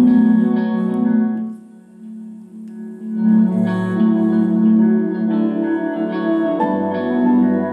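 A music track playing through speakers, streamed from a phone over a TX-16 Bluetooth transmitter into a car amplifier. It dips quieter for a moment about two seconds in, then comes back at full level.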